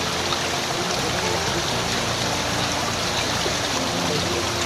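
Fast river water rushing steadily through a bamboo fish trap and over its slatted floor.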